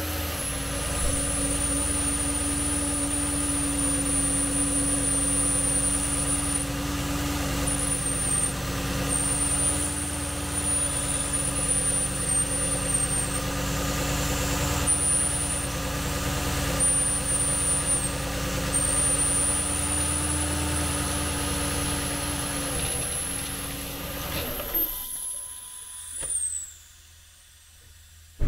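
Porsche Cayenne S 4.8L V8 idling just after starting, its pitch settling down in the first second, with a loud hissing, sucking noise and a steady high whistle over the engine. The hiss is a vacuum leak: a torn air-oil separator diaphragm lets the engine draw in air, which also sets off a mass air flow implausible fault. The engine is shut off about 25 seconds in.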